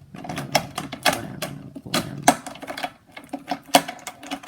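Plastic clicking and clacking of a Rubik's brand 3x3 cube being turned one-handed: quick irregular clicks, several a second.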